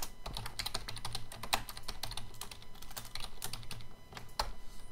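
Typing on a computer keyboard: a quick run of key clicks, with a brief pause about four seconds in.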